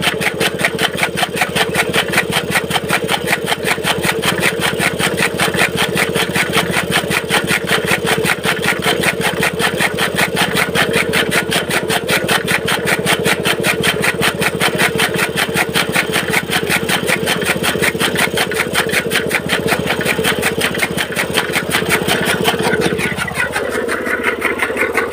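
Petrol-engine-driven chaff cutter (toka) running steadily, its small engine's rapid even beat mixed with the flywheel blades chopping green fodder. The deeper part of the sound thins out about 23 seconds in.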